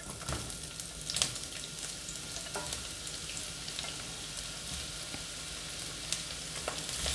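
Sliced onions sizzling as they start to fry in hot oil in a pan, with a few light clicks of the spatula pushing them in.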